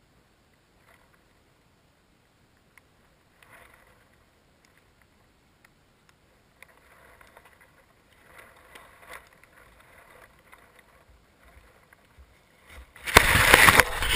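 A camera's microphone lying in grass, near silent with a few faint rustles, then about thirteen seconds in a sudden loud burst of handling noise and wind buffeting as the camera is picked up.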